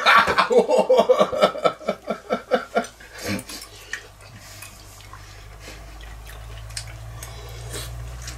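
A man laughing heartily for about three seconds, then quieter sounds of eating: spoons clicking in bowls over a low steady hum.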